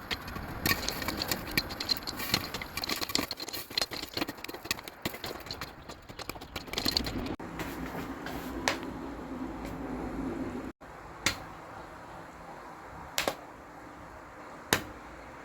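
Popcorn kernels popping: a rapid crackle of pops that thins out to a steady low hum with scattered pops, then to single pops a second or two apart as the popping winds down.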